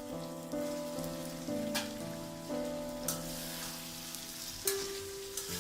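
Curry of brinjal and tomato sizzling in a frying pan, with a few sharp clicks, under background music of held notes that step from one pitch to the next.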